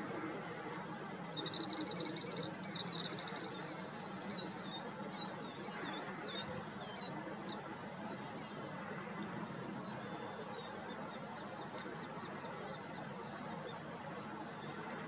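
A small bird singing: a quick run of high, clear notes, then single notes about twice a second that fade out over the next several seconds, over steady low background noise.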